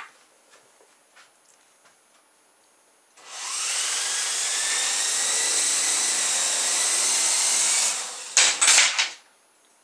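Small electric RC helicopter's rotors spinning up about three seconds in with a rising whine and running steadily as it lifts off, then a quick run of sharp knocks as it comes back down and the motors cut out.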